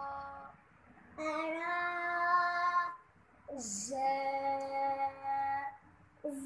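Children chanting Arabic letter names in Noorani Qaida alphabet practice. Each letter is drawn out as one long, steady sung note, with short pauses between, and a hissing 's'/'sh' sound opens some of the letters.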